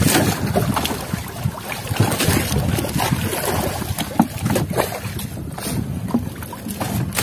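A small boat on the open sea, with water noise and wind buffeting the microphone.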